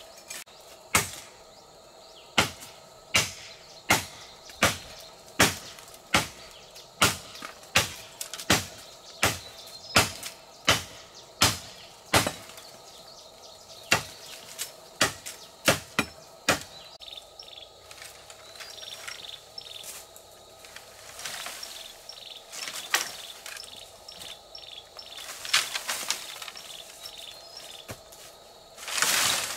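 Bamboo stems being chopped with a blade: sharp strikes about every three-quarters of a second that stop about halfway. Then bamboo leaves rustle with a few lighter knocks, and near the end comes a loud rush of rustling.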